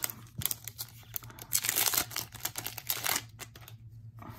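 Foil Magic: The Gathering booster pack wrapper being torn open and crinkled, a dense crackling for about three seconds, then fainter handling of the cards.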